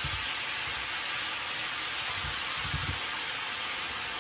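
Morels and chopped shallots sizzling steadily in a frying pan of hot butter and oil, with a few soft low thumps from the pan and its contents being handled.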